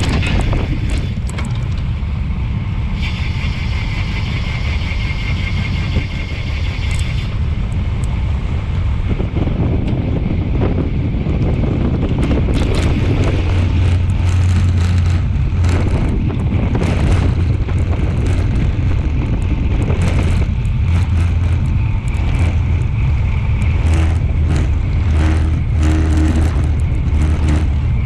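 Wind rushing over an action camera's microphone on a road bike ridden at race speed, a heavy low buffeting rumble. A high rattling hiss a few seconds in and scattered clicks and knocks from the bike running over the paving.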